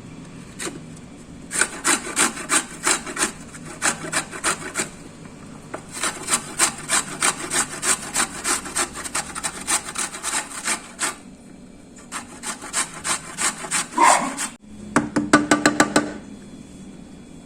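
Knife chopping on a wooden cutting board: runs of sharp, even strokes, about two to three a second, with a faster run near the end.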